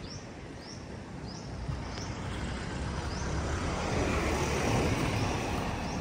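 A vehicle passes on the street, its tyre and engine noise swelling over the second half and loudest near the end. Earlier, a bird repeats a short high chirp about twice a second.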